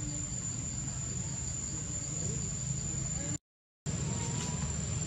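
Insects droning steadily at a high pitch over a low rumble, broken by a half-second gap of silence a little past halfway.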